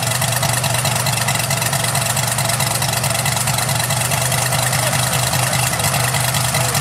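Radial engine of a large radio-controlled C-47 model idling steadily, with an even low drone and no change in speed.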